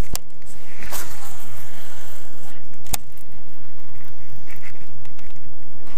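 A cast with a baitcasting reel: sharp clicks of the reel, and about a second in a brief falling whir as the spool pays out line. Under it a loud, steady low hum and rumble.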